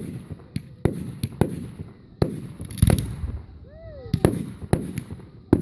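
Fireworks going off: a quick, irregular run of about a dozen sharp bangs and crackles.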